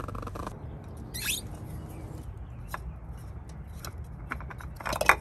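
Hands twisting the spin-on oil filter off a Yamaha F90 outboard's powerhead: a scrape about a second in, a few scattered light clicks, and a quick cluster of clicks near the end.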